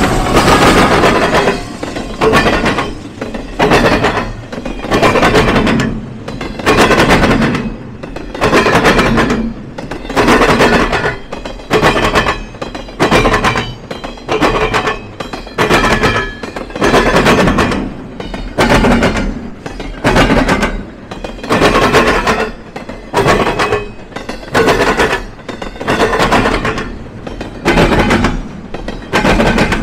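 Train wheels pounding over a railroad diamond crossing: loud, repeated clattering bangs, roughly one every second or so, as truck after truck of a passing train hits the gaps in the crossing rails.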